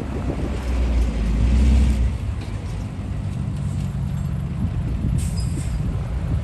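Heavy diesel machinery engine running under load. It swells louder about a second in, then settles to a steady drone, with a short hiss about five seconds in.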